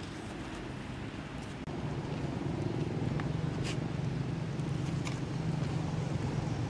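A low, steady motor hum that grows louder about two seconds in, with a few faint clicks over it.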